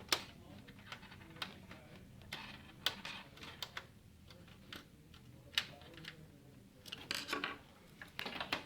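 Irregular small clicks, taps and brief scrapes of hands handling the plastic and sheet-metal parts of a desktop computer during reassembly.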